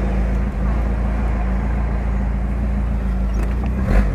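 Chevrolet Opala engine idling steadily with a low, even exhaust note. In the last moment the revs rise briefly.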